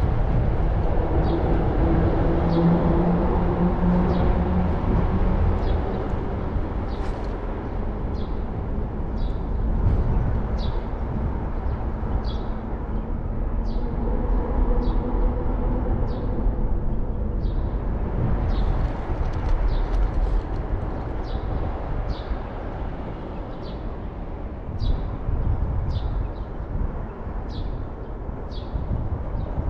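Strong wind rumbling on the microphone, with a bird's short high chirps repeating about once a second. A low hum sounds briefly in the first few seconds.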